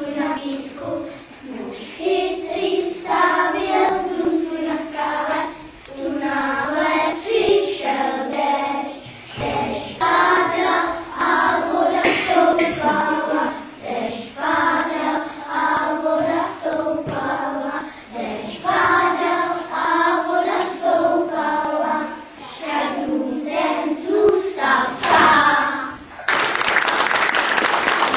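A group of young children singing a song together in phrases with short breaks; about two seconds before the end the singing stops and an audience breaks into applause.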